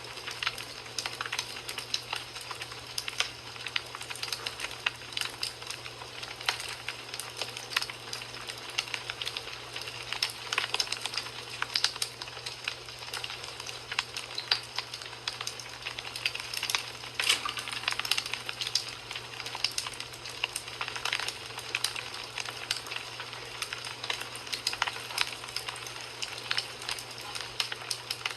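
Wood fire burning in a fireplace, crackling steadily with many small irregular pops and snaps over a soft hiss.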